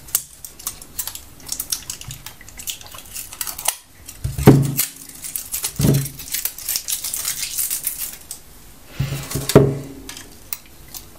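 Pliers working the nickel connecting strips off the ends of LG 18650 lithium-ion cells: a run of sharp metallic clicks, snips and clinks, with a few louder knocks about halfway through and near the end.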